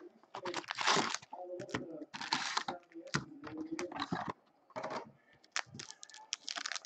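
Foil wrappers of Upper Deck Ice hockey card packs crinkling and rustling in short bursts as packs are pulled from their boxes and set down in stacks, with a few light clicks of packs tapping on the table.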